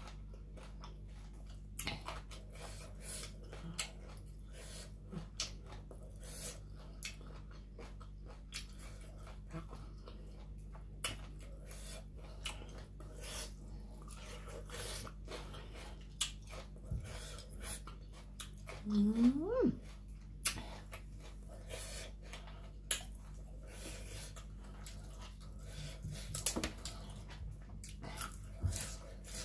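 Close chewing and biting of spicy papaya salad and raw vegetables: a run of wet crunches and mouth clicks. A brief rising vocal sound comes about two-thirds of the way through.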